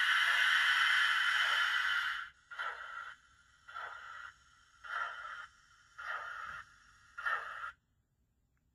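DCC steam sound from a model Fairburn 2-6-4 tank locomotive's on-board speaker. A steady hiss of steam runs for about two seconds, then come slow, evenly spaced chuffs about one a second, five in all. The sound cuts out suddenly near the end: the loco loses power pickup on the dead spot of the points it is crossing.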